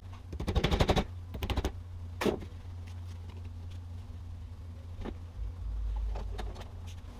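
A metal band clamp on a CV axle boot being tightened with band clamp pliers: two quick runs of rapid clicking near the start, then a couple of single metal knocks.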